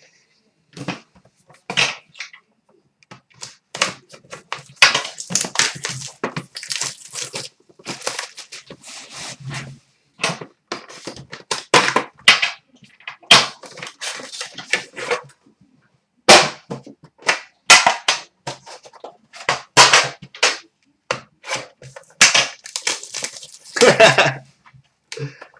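Plastic wrapping being torn and crinkled as a sealed hockey card box and pack are opened by hand, in irregular sharp crackles and rustles with a few knocks of the box being handled.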